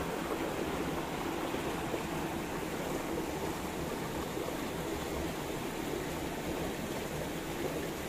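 Mountain stream rushing over boulders: a steady, even rush of water.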